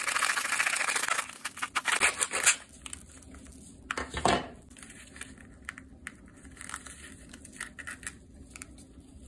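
Scissors cutting through a plastic K-Cup coffee pod: a dense crunching rasp for about the first second, then a run of crackling snips ending in a sharp crack about two and a half seconds in. After that the pod crinkles and rustles as it is squeezed and its halves pulled apart, with a brief louder crackle about four seconds in.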